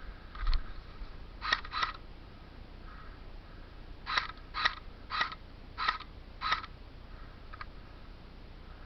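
Airsoft gun fired in single shots, sharp snapping reports: a few shots in the first two seconds, then a quick run of five shots about half a second apart.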